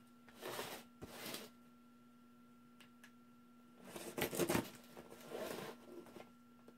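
A small knife slitting packing tape on a cardboard box, with scraping and rustling of tape and cardboard in short bursts. There are two brief bursts around half a second and a second in, and a louder stretch about four seconds in.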